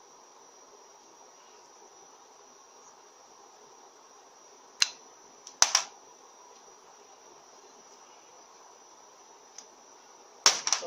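Sharp metallic clicks and knocks as shift solenoids are pulled from an FN4A-EL automatic transmission's aluminium valve body and set down on a sheet-steel bench: one about five seconds in, a pair just after, and a louder cluster near the end. Underneath is a faint steady high-pitched whine.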